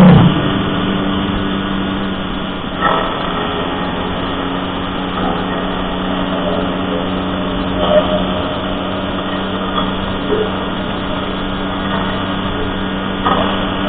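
Motorcycle engine running at a steady cruising speed, a constant hum under road and wind noise, heard from the moving bike. A few short, louder sounds stand out about 3, 8 and 13 seconds in.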